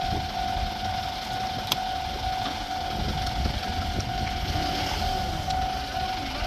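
Japanese level-crossing warning bell ringing: a repeating electronic tone, over a low rumble.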